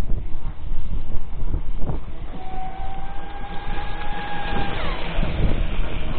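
Electric radio-controlled speedboats running flat out: a high motor whine holds steady, then drops in pitch as a boat passes close by. Heavy wind buffeting on the microphone runs underneath.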